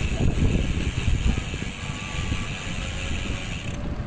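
Bicycle freewheel hub clicking steadily as the rider coasts, over a low rumble of wind on the microphone.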